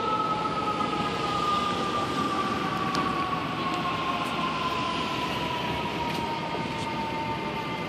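Fire engine siren sounding as one long, slowly falling tone, over the noise of city street traffic.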